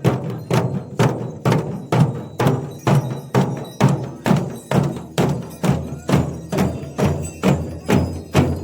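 Traditional festival drum beaten in a steady, even rhythm of about two strokes a second, each stroke a deep thud that dies away before the next.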